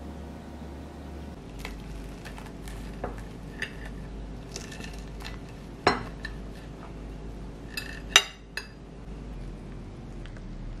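Metal fork clinking and scraping on a ceramic plate while cutting through a waffle, with two sharp clinks about six and eight seconds in.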